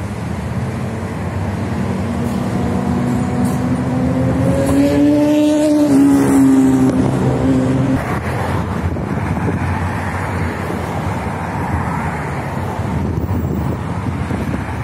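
A motor engine passes close by. Its hum rises in pitch, drops sharply about six seconds in as it goes past, and is gone about two seconds later. After that there is a steady rush of wind and traffic noise.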